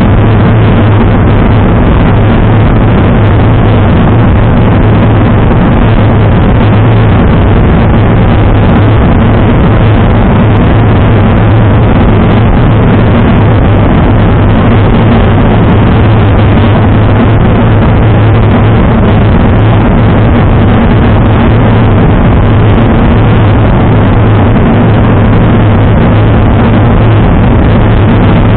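Wind rushing over a bicycle-mounted action camera's microphone at about 40 km/h: a loud, steady roar with a strong low hum, with no letup.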